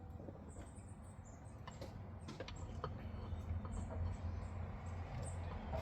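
Faint scattered clicks and light taps of the fuel filter housing and its lines being handled and fitted in the engine bay, over a steady low rumble, with short high chirps now and then.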